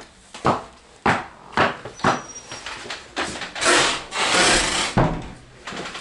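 Footsteps of winter boots on a wooden floor, a sharp knock about every half second, then a longer scraping, rustling noise in the middle.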